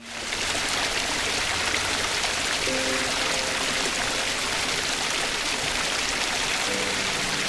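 A waterfall: a steady rush of falling water that cuts in suddenly, with a few faint music notes sounding under it twice.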